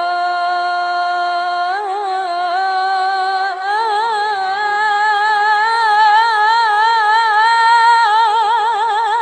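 A solo female voice on an old recording sings one drawn-out melismatic phrase without words: long held notes that step up in pitch twice, with a wavering vibrato that widens after about four seconds.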